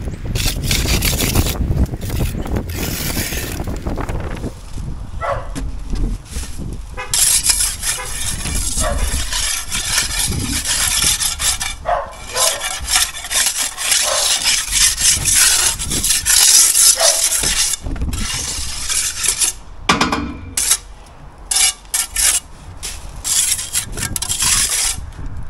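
A steel trowel scraping and rubbing against concrete blockwork in repeated strokes, most continuous through the middle and breaking into separate short strokes near the end. Wind buffets the microphone in the first few seconds.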